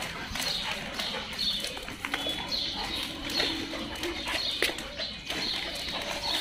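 Birds calling in short chirps that fall in pitch, repeating every half second to a second, with a low cooing note about midway.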